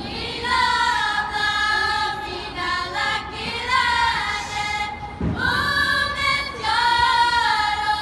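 A group of girls singing a Chamorro song together in unison, in long held notes that step from one pitch to the next.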